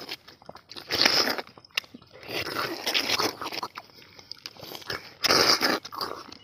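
Tender palmyra fruits (ice apples) being eaten straight from the cut fruit: slurping and chewing as the jelly kernels are sucked out, in several short bursts, the loudest about five seconds in.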